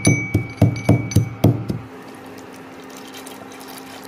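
A pestle pounds spices in a small steel bowl, about three to four strikes a second, each with a ringing metallic clink. The pounding stops about two seconds in, and a steady low hum follows as liquid is poured into a steel pan on an induction cooktop.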